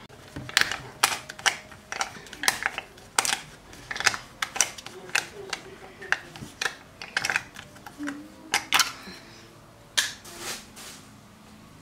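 A string of sharp, irregular clicks and knocks, about two or three a second, thinning out near the end, from hands handling things at the kitchen stove.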